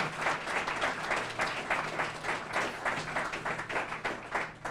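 Small audience applauding, a dense patter of hand claps that stops near the end.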